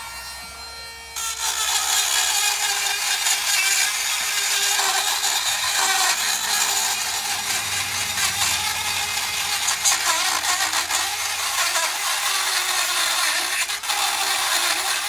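Dremel rotary tool grinding rust off the brake caliper where the pad seats: a steady whine that turns to a harsh grinding noise about a second in as the tool bites, with a brief let-up near the end. The rust build-up had made the new brake pad too tight to move in the caliper.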